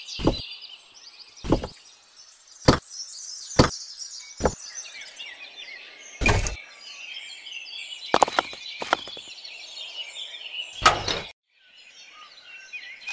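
Short, sharp knocks and clacks, about nine in all, as small concrete beams and miniature clay bricks are set down and pressed by hand. Birds chirp steadily behind them.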